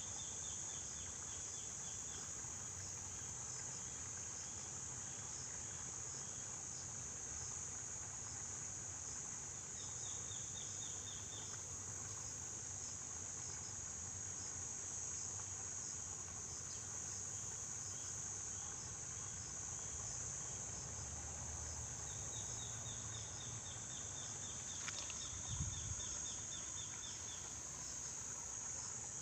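Steady high-pitched drone of insects, with runs of rapid chirping coming and going. A single short knock sounds near the end.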